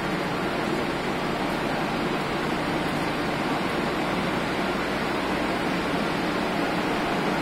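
Steady running noise of a sensor-activated escalator carrying a rider upward: an even rushing hiss with a faint low hum underneath.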